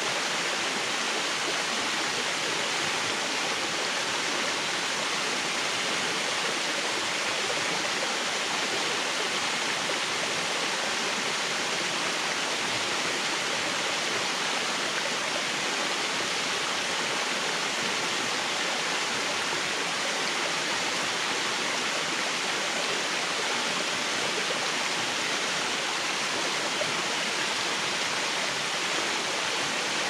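Waterfall: water falling and rushing over rocks in a steady, unbroken rush.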